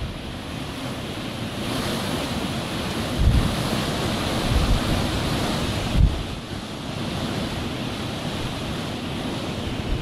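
Blizzard wind blowing steadily, growing stronger about two seconds in, with gusts buffeting the microphone in low rumbles several times.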